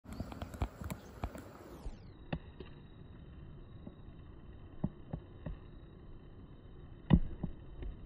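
Handling noise from a hand-held smartphone: irregular light clicks and knocks over a faint hiss, the loudest knock about seven seconds in.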